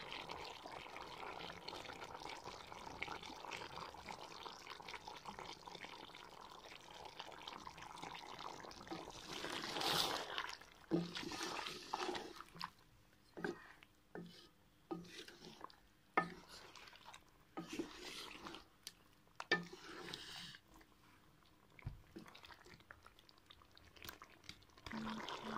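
Chicken and yogurt sizzling in a metal karahi pot, a steady hiss for about the first ten seconds. A spatula then stirs the pot, with scattered knocks and scrapes against the metal.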